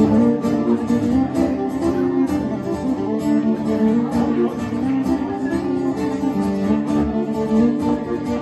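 Acoustic guitar and fiddle playing a tune together: the guitar is plucked and strummed under held, bowed fiddle notes.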